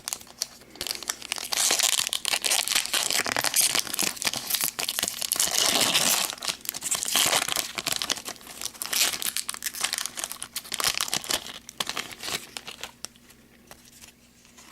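Foil wrapper of a hockey card pack crinkling and tearing as it is ripped open and crumpled by hand, thinning to a few light clicks near the end as the cards are handled.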